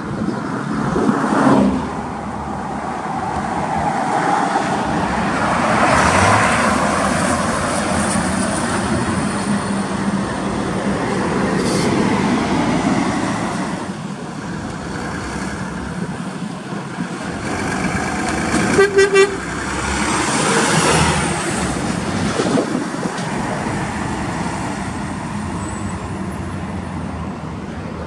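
Heavy trucks passing on a highway, engine and road noise swelling and fading as each goes by. About two-thirds of the way through, a truck horn gives a quick burst of short toots.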